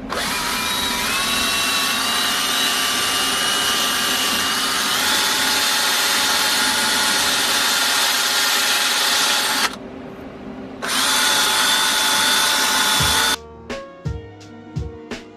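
Power tool spinning a wire brush against a metal bracket, scrubbing it clean before welding: the motor whine rises as it spins up, runs about ten seconds, stops for about a second, then runs again briefly. Music comes in near the end.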